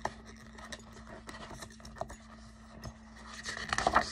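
Light handling noise: scattered small clicks and scratches, thickening into a brief rustle near the end, over a faint steady hum.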